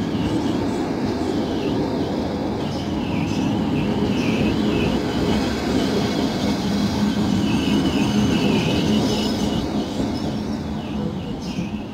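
Passenger coaches of a train rolling past on the rails: a steady rumble of wheels with a wavering, high-pitched wheel squeal over it.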